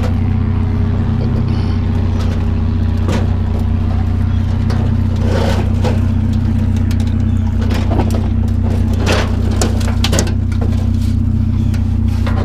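A vehicle engine idles steadily with a low, even hum. Scattered knocks and scrapes of metal sound over it as a barbecue grill is shoved and jiggled into the truck.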